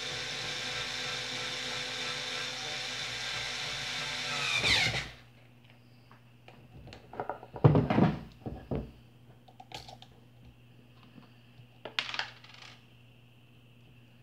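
A small electric motor-driven tool runs with a steady whir and hiss, then is switched off about five seconds in, its pitch sliding as it stops. Then come clinks and knocks of metal parts being handled, the loudest a cluster about eight seconds in and another about twelve seconds in.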